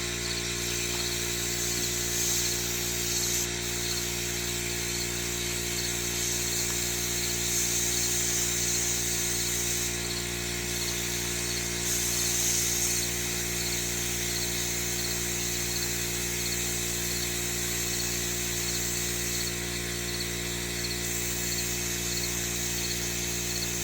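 Electric tire inflator running steadily, its small motor and pump buzzing without a break while it airs up a freshly plugged tire, with a hiss that comes and goes on top.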